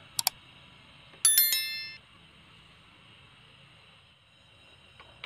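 Subscribe-button sound effect: two quick mouse clicks, then about a second later a bright bell ding that rings out and fades within a second.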